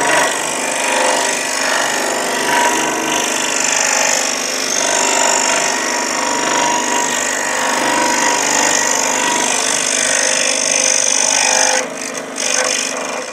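Jet scroll saw running, its fine blade cutting through a thin wooden workpiece in a steady rasping saw noise while an interior cut is sawn. The cutting sound drops off near the end.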